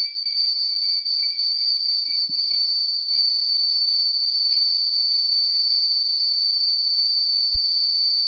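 Bicycle bell ringing continuously in one steady, high-pitched ring.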